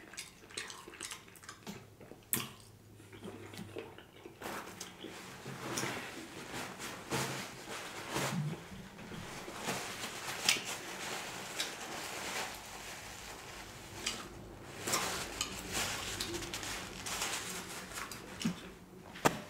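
Close-up chewing and wet mouth sounds of eating, with many small clicks throughout. A paper towel rustles partway through as hands are wiped.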